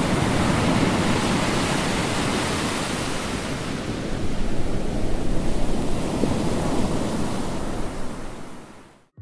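Churning seawater and breaking surf: a steady rush of white water that fades out near the end.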